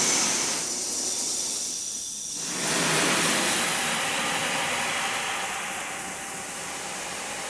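Simoniz handheld high-pressure power washer spraying a jet of water, a steady hiss that grows fuller about two and a half seconds in.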